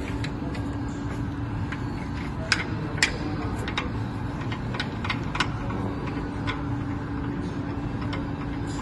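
Steady hum of running machinery with one held tone, broken by scattered sharp clicks and taps, the two loudest about two and a half and three seconds in.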